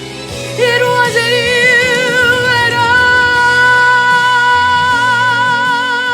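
Song ending: a singer holds one long final note with vibrato over the backing music. The note comes in about half a second in.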